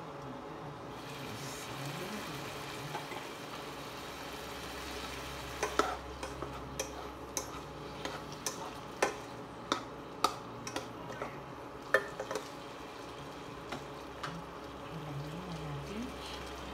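Meat, potatoes and carrots sizzling in a nonstick pan. A plastic spatula stirs them, knocking and scraping against the pan in a run of sharp clicks from about six to twelve seconds in.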